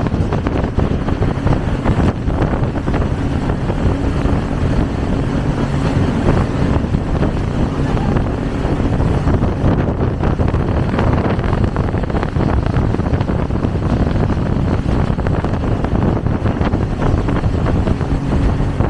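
Speedboat under way at speed: a steady engine drone mixed with rushing water and wind buffeting the microphone.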